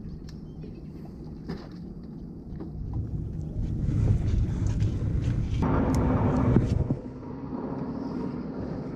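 A boat engine droning steadily, growing louder about halfway through and dropping back near the end.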